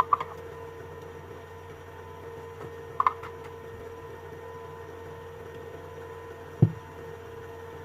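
Steady electrical hum in a small room, with a short click about three seconds in and a single dull knock near the end.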